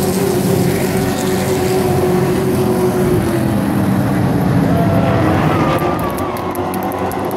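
Engines of several race trucks running together as the pack passes on the oval, a steady mixed engine sound with stacked tones.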